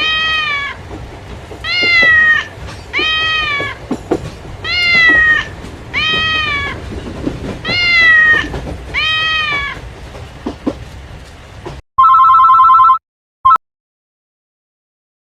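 A cat meowing over and over: about seven drawn-out calls, each rising then falling in pitch, repeating in an even, looping pattern. About twelve seconds in, a steady two-tone beep sounds for a second, followed by a short blip.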